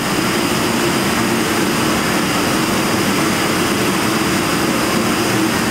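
Crankshaft, flywheel and clutch assembly spinning on a dynamic balancing machine: a steady whirring with a low hum, held at constant speed while the machine measures how far out of balance the rotating assembly is.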